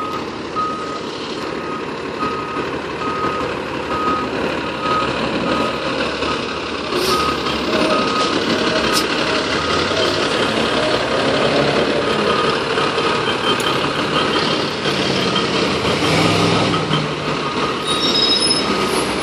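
FDNY fire engine backing up: its reversing alarm beeps steadily at one pitch, about one beep every three-quarters of a second, over the truck's diesel engine running.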